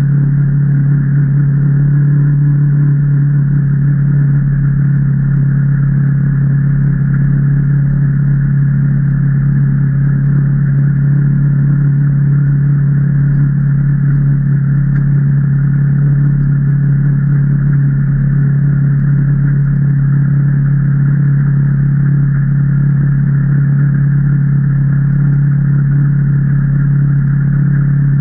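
2019 Can-Am Maverick Trail 800 side-by-side's V-twin engine running at a constant speed while driving, one steady unchanging engine note.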